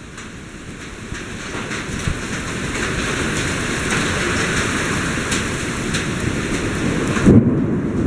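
Heavy rain pouring down in a strong storm wind, growing louder over the first few seconds, with a loud low rumble near the end.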